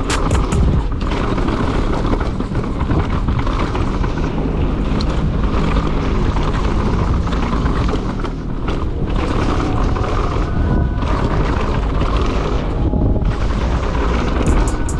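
Mountain bike riding down a bike-park trail: wind buffeting the camera's microphone and the tyres and bike rattling over the ground make a loud, steady rumble. A quick run of sharp clicks comes near the end.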